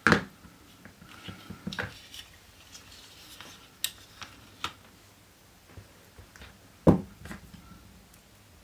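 Model-car parts clicking and knocking against each other and the work surface as they are handled and fitted together: a string of light, irregular clicks, with two louder knocks, one at the very start and one about seven seconds in.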